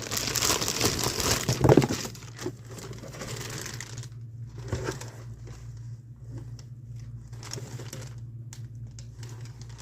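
Plastic or paper packaging crinkling and rustling as the blower is unboxed, dense for about the first two seconds, then only scattered rustles and taps. A steady low hum lies underneath.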